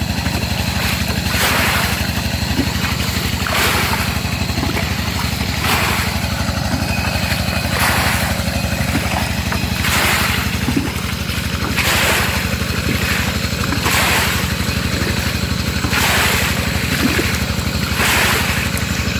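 A small engine runs steadily, with a wet sloshing swish about every two seconds as bucketfuls of mud are tipped into a wire-mesh sieve basket.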